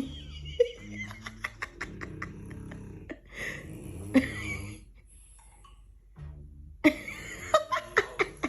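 French bulldog snoring: a series of low, rasping snoring breaths one to two seconds apart, with a lull about five seconds in. Scattered sharp clicks and brief higher sounds lie over them.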